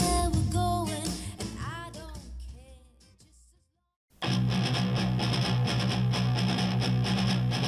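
Music played through desktop speakers and recorded with a handheld recorder. A track with a gliding melodic line fades out to a brief silence, then a rock track with strummed electric guitar cuts in abruptly near the middle.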